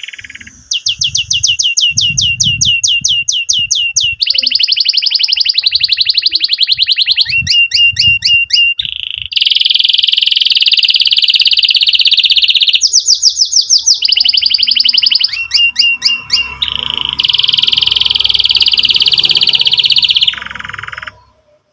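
Domestic canary singing a loud, continuous song of rapid trills, switching to a new repeated note every one to three seconds. The song breaks off abruptly near the end.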